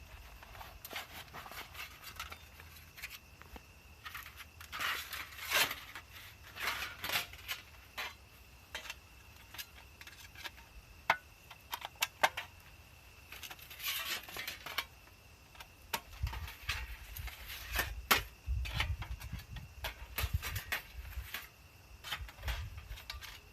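Thin metal panels of a small flat-pack wood-burning fire stand clinking and scraping as they are slotted together during assembly, in irregular bursts of light metallic clicks.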